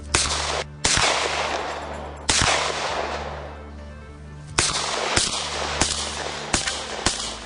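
Saiga 12 semi-automatic 12-gauge shotgun firing about eight shots, the first three spread out and the last five coming quicker, about half a second to a second apart. Each shot has a long echoing tail.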